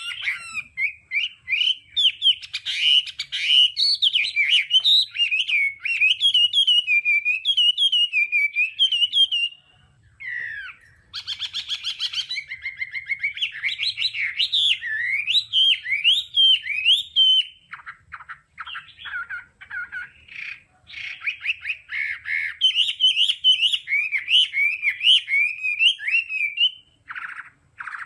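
Chinese hwamei singing a long, varied song of rapid whistled notes sliding up and down, the switching-note song kept for training caged birds. It breaks off briefly about ten seconds in and then gives a short harsh, rasping phrase before going back to whistling.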